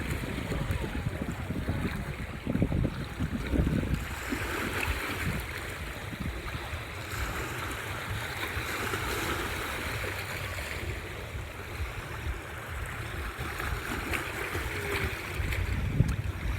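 Sea waves washing onto the shore, the hiss swelling and ebbing every few seconds, with wind buffeting the microphone in gusts, heaviest in the first few seconds and again near the end.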